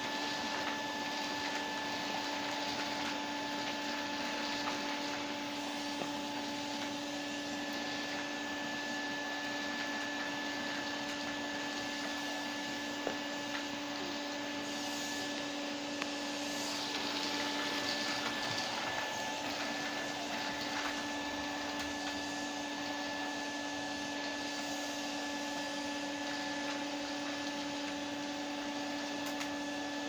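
Numatic Henry vacuum cleaner running steadily, a constant motor whine over suction hiss, as its wand sucks up small paper pieces from a carpet. A few faint clicks come through.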